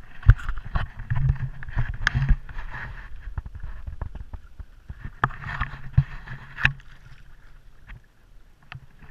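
Water lapping and splashing against a plastic sit-on-top kayak, with repeated sharp knocks and clicks from handling on the hull. It is quieter in the last second or so.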